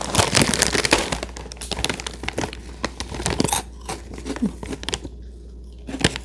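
Plastic snack packet crinkling and crackling as it is handled, dense for the first few seconds and then thinning out, with a short lull before more crackles near the end.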